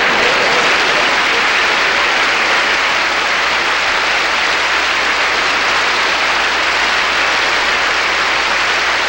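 Large audience applauding, loud and steady.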